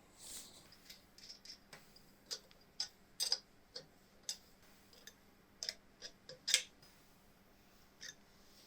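A dozen or so light clicks and taps at irregular intervals, as small parts are handled during hand work on a motorcycle engine restoration.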